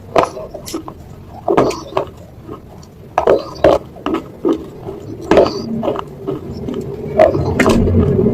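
Close-miked eating of chicken noodles: irregular chewing and slurping mouth noises with sharp clicks, likely of utensils against the bowl. A steady low rumble comes in near the end.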